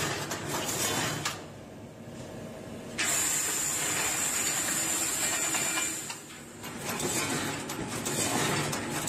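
Automatic wire mesh welding machine running, a steady mechanical clatter with air hiss. The hiss comes in suddenly and loudly a few seconds in and drops away about three seconds later.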